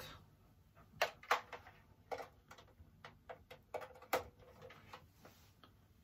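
Light clicks and knocks of a cable and its plug being handled, about eight scattered sharp ticks, the loudest about a second in and just after four seconds.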